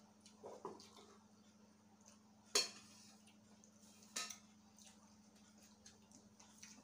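A spoon clinking against a metal rice pot and dishes, two sharp clinks about two and a half and four seconds in, over a faint steady hum.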